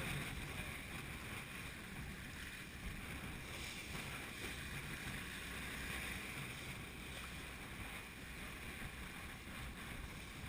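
Steady rush of wind and sea around a sailing yacht in a force 7 blow, with no single event standing out.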